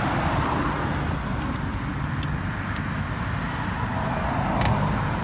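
Steady street traffic rumble from passing cars, with a few faint crinkles and clicks as a plastic bag is twisted closed by hand.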